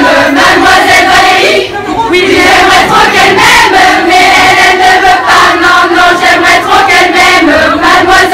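A crowd of fans singing a song together in unison, mostly high female and young voices, loud and close.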